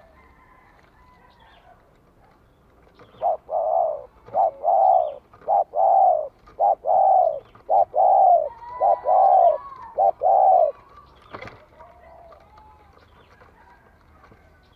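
Spotted dove cooing: about seven two-note coos, each a short note followed by a longer one, repeated roughly once a second for about eight seconds, starting about three seconds in. Faint chirps of other birds run in the background.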